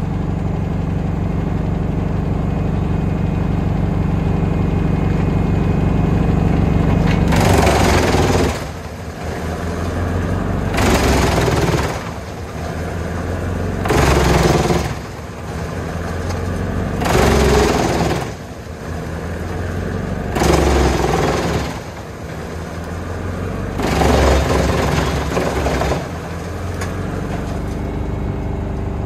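Tractor-driven Junkkari HJ500 wood chipper running steadily, then chipping a log in six loud bursts about every three seconds, each lasting a second or two, with the engine hum running on between them.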